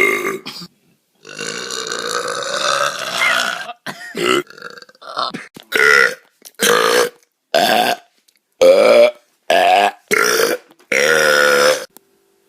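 A string of loud belches: one long one starting about a second in and lasting over two seconds, then about seven short ones in quick succession, each stopping abruptly.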